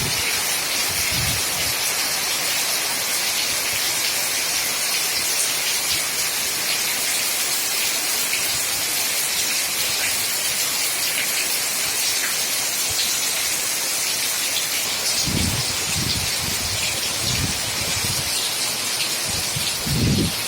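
Heavy rain pouring down in a steady, even hiss. Strong wind gusts buffet in low, irregular bursts over the last five seconds.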